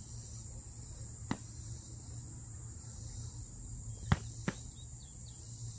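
Foam sparring swords striking: three sharp smacks, one about a second in and two close together about four seconds in, the first of that pair the loudest. Under them, a steady high insect chorus.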